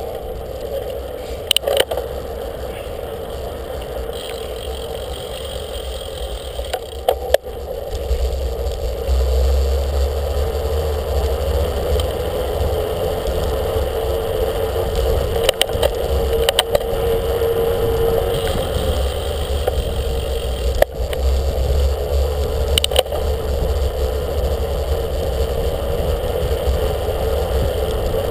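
Riding a bicycle, heard from a camera on the bike: wind rumbling on the microphone with a steady hum, and scattered knocks and rattles as the bike rolls over the paving. The wind rumble grows louder about eight seconds in.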